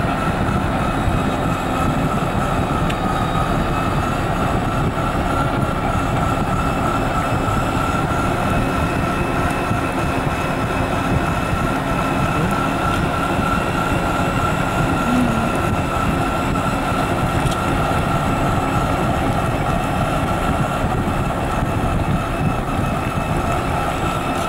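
Self-balancing scooter rolling at a steady speed: a constant whine from its drive over a heavy rumble of tyres and wind.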